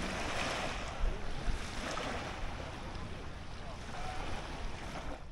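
Wind rushing and buffeting the microphone: a steady hiss over an uneven low rumble.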